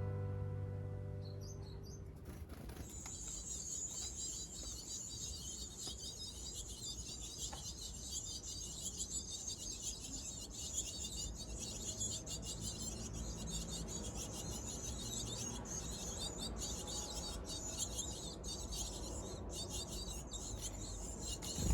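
Japanese tits chirping in a rapid, continuous high-pitched chatter that starts about three seconds in and runs on, over a low steady background rumble.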